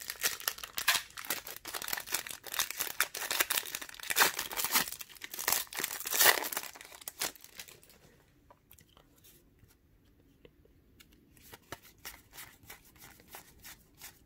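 A foil trading-card pack crinkling and tearing open, with busy, crackly rustling for about the first seven seconds. After a quiet pause come a few faint ticks of cards being handled.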